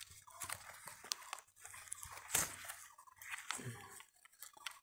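Grape vine leaves rustling and crackling close to the microphone as the vine is handled, with scattered small clicks.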